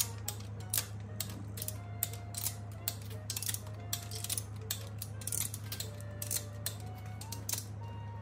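Ratchet head of a long torque wrench clicking irregularly, a few clicks a second, as the crankshaft main cap bolts are tightened. Soft background music with a steady low hum underneath.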